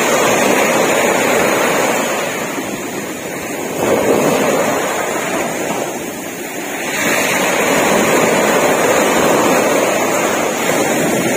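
Small sea waves breaking and washing up a beach, a steady rush of surf that swells as a wave comes in, about four seconds in and again about seven seconds in.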